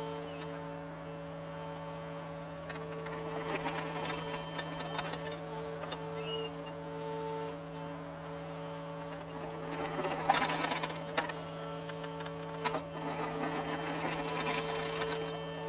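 John Deere compact excavator's diesel engine and hydraulics running with a steady droning hum. About ten seconds in there is a burst of scraping with a few sharp knocks.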